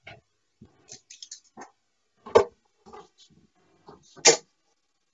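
Steel-tip darts striking a Winmau Blade 5 bristle dartboard: a few faint clicks and two sharp knocks about two seconds apart, the second the loudest.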